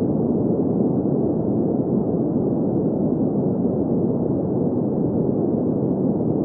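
Steady, unchanging synthetic sleep noise, deep and muffled, with nothing in the high range and no tones or beats.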